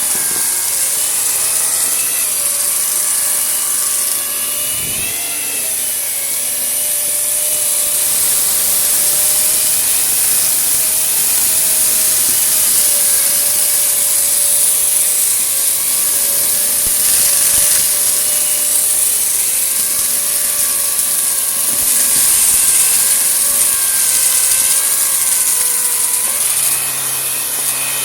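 Vacuum cleaner running steadily, its motor whine wavering slightly in pitch over a strong airflow hiss as it is worked over a dusty, gritty mess.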